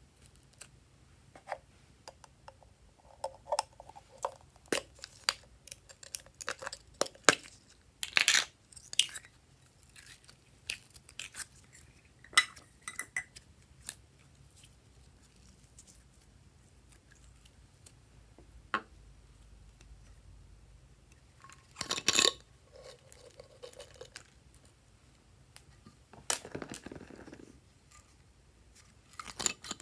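Hands squishing, poking and stretching glossy slime in a glass dish: a run of sharp wet pops and clicks from air pockets bursting, thick in the first half, then sparser. A louder crackling burst comes about two-thirds through and another near the end.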